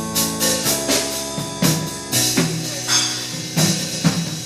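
Live gospel band playing between sung lines: drum kit hits over held keyboard chords.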